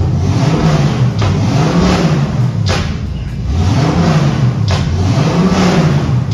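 Motorcycle engine being revved repeatedly, the note climbing and falling again every second or two, with a few sharp cracks between the revs.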